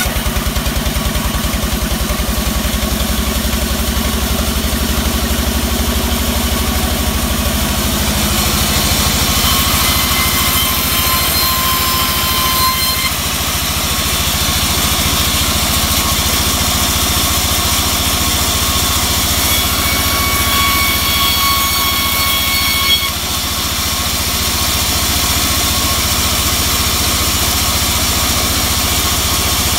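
Vertical band sawmill running steadily with a low pulsing drive drone while its blade rips teak into boards. Thin high whining tones come and go as the wood is fed through.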